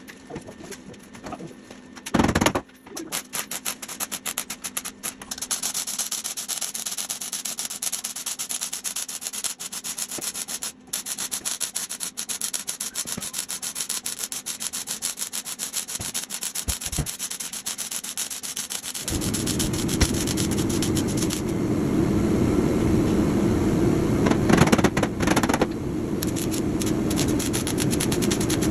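Gas-shielded arc welding on a truck cab's sheet metal, the arc crackling and sputtering in long runs, louder and deeper from about two-thirds of the way through. A single loud knock about two seconds in.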